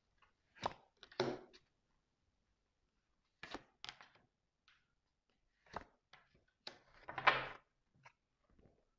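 Tarot cards being drawn from a hand-held deck and laid on a tabletop: a scattered series of soft card taps and snaps, with a few brief slides as cards are pulled and set down.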